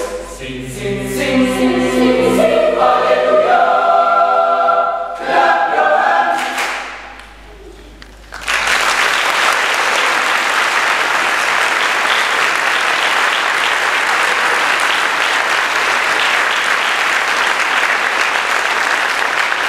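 Boys' choir singing its closing phrases and ending on a held chord that fades out about seven seconds in. After a moment of quiet, audience applause breaks out suddenly and goes on steadily.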